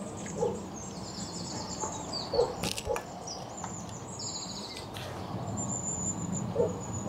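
Small birds singing and chirping, with quick high trills throughout. A few short, lower calls come through now and then, and there are two sharp clicks near the middle.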